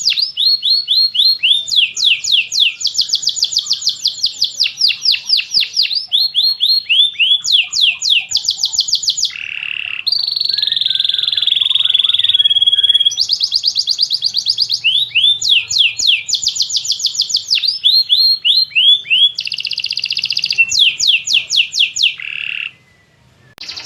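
Domestic canary singing: a long song of rapid trilled phrases, each a quick run of repeated notes that switches to a new pattern every second or two. About ten seconds in comes a held whistled note lasting a few seconds, and the song breaks off briefly near the end.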